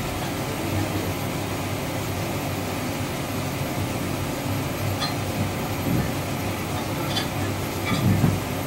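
Steady low hum of workshop machinery and a running electric fan, with a few light clicks in the second half and a brief louder bump about eight seconds in.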